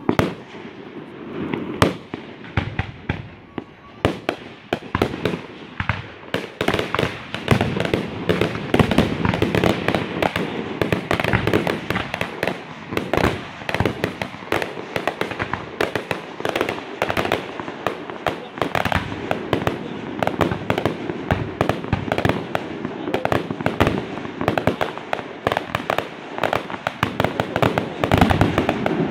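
Fireworks display: aerial shells going off in a rapid, continuous series of bangs and crackles, which grows denser after the first few seconds.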